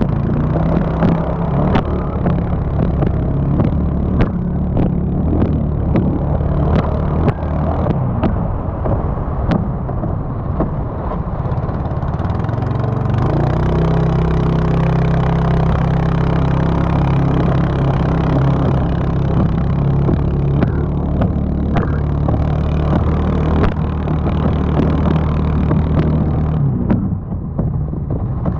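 Kress Nautica engine of a racing banca running at steady high revs, with sharp splash knocks of water against the hull, most often in the first half. Near the end the engine note drops as the throttle eases.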